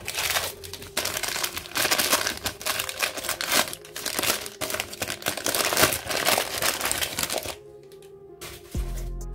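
Thin white wrapping paper being pulled from a toy box and crumpled by hand: a dense, continuous crinkling that stops about seven and a half seconds in. Background music plays underneath, and a deep bass comes in near the end.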